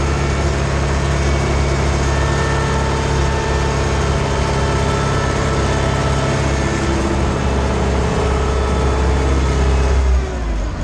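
Ursus C-360 tractor's four-cylinder diesel engine running steadily while pulling a cultivating unit across a field, heard from inside the cab. About ten seconds in, the engine note falls as the revs drop.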